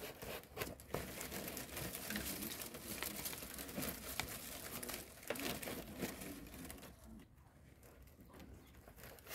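Dry palm-leaf strips rustling and crackling with many small irregular clicks as they are handled and woven by hand. The sound grows fainter for the last two seconds or so.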